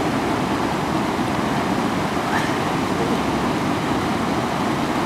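Fast-flowing mountain river rushing over stones: a steady, unbroken rush of water.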